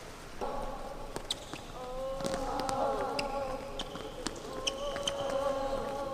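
Women volleyball players warming up on an indoor court: sharp knocks of balls being hit and bouncing, brief sneaker squeaks on the floor, and players' voices calling out in long, drawn-out tones.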